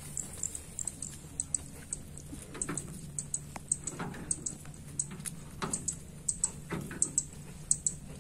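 Irregular light clicks and rustles, a few a second, of footsteps and rice plants brushing as someone walks along a dirt path between ripe rice paddies, over a faint steady low hum.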